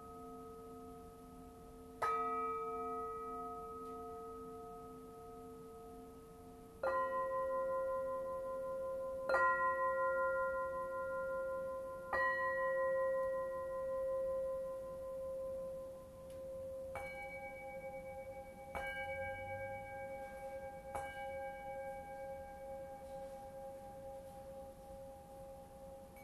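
Singing bowls struck one after another with a mallet, about seven strikes on bowls of different pitch, each ringing on for several seconds with a slight wavering as it fades.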